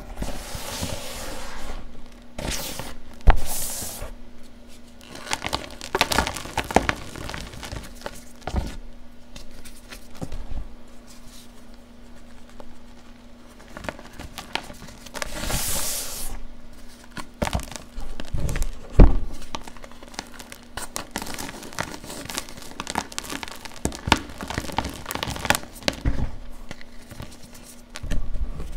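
Blocks of gym chalk crushed and crumbled by hand in a bowl: irregular crunches and soft crackles of breaking chalk, a few heavier thuds, and some longer hissing sweeps through the loose powder.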